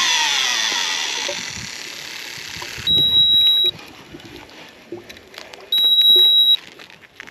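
A loud whine that falls in pitch and fades over the first two seconds, then two steady high-pitched electronic beeps, each under a second long and about three seconds apart.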